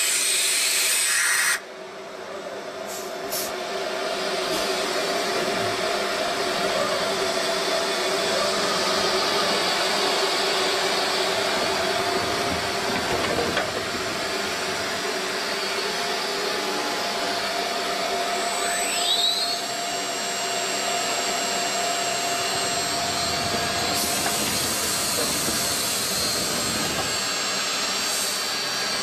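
Chencan 3023 CNC machining center's spindle running and milling a plate, a steady high whine with hiss. The noise cuts off suddenly about a second and a half in, then builds back up over a couple of seconds; a short rising whine comes about two-thirds of the way through.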